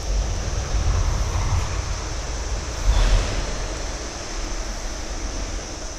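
Wind rumbling on the microphone, with a louder gust about three seconds in, over a steady high chirring of summer insects.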